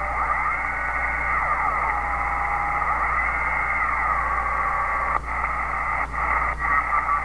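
Receiver audio from a Uniden Grant XL CB radio converted to the 20-meter ham band, being tuned slowly down the band: a steady hiss of static with whistling tones that slide up and down in pitch as the dial moves, over a low hum. The sound dips briefly a few times near the end.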